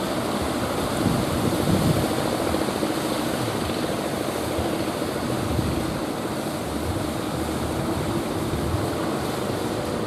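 Engine of an outrigger fishing boat droning steadily as the boat pushes through rough surf, with the wash of breaking waves around it.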